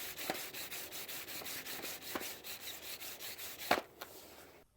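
Vinyl record rubbed or slid against a surface, giving a dry, steady rasp with a fast, even ticking texture. A sharper click comes near the end, and then the sound stops.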